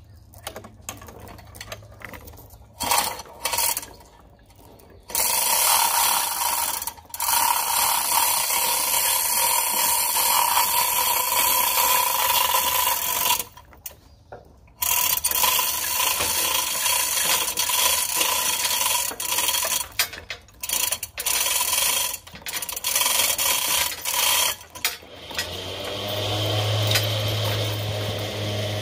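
Hand chain hoist lifting a black walnut log: the chain is hauled through the hoist in long runs, a steady ratcheting, rattling clatter broken by short pauses. Near the end an engine starts running low in the background.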